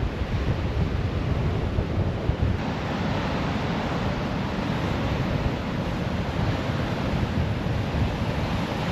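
Ocean surf washing on the shore, with strong wind buffeting the microphone.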